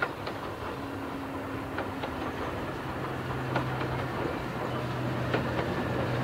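Somerset & Dorset Joint Railway 7F 2-8-0 steam locomotive No. 53808 approaching along the track, its sound growing steadily louder, with a few sharp clicks from the wheels on the rails.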